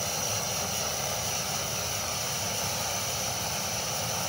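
Camp stove burner running with its flame lit: a steady, even rushing hiss.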